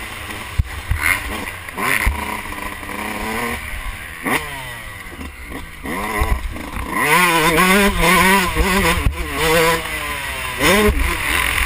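Yamaha YZ125 two-stroke dirt bike engine revving hard under way, its pitch climbing in several quick rises as it pulls through the gears, with a longer wavering stretch at high revs a little past the middle. Low wind rumble and a few sharp knocks from the ride run underneath.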